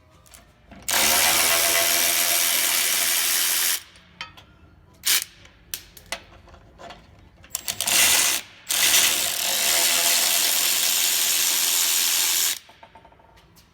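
Power ratchet spinning a fastener in two runs of about three to four seconds each, with scattered metallic clicks and knocks of tool work between them.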